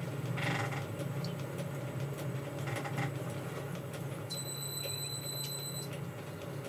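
Boxford lathe running at slow speed with a steady hum while a machine reamer in a floating holder is fed into a bore that runs out six thou, with a couple of faint brief scraping sounds from the cut.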